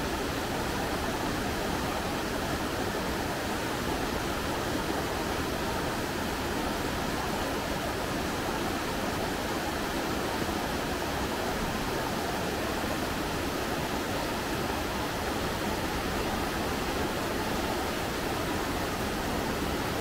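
Mountain stream rushing over boulders through shallow rapids: a steady, even rush of white water.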